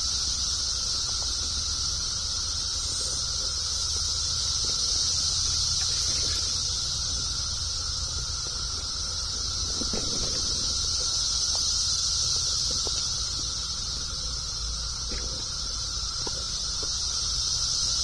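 A dense chorus of periodical cicadas making a continuous, loud, high-pitched drone that holds steady throughout, with a thinner, lower steady whine underneath. Faint footsteps on a dirt trail are heard about ten seconds in and again near the end.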